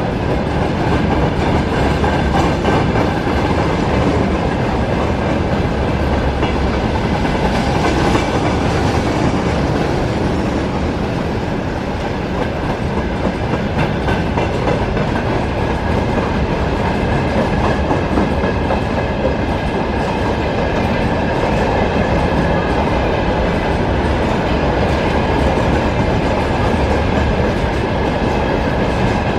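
Freight train of open gondola wagons rolling past close by: a steady rumble with the wheels clicking over the rail joints and a faint high steady whine from the wheels.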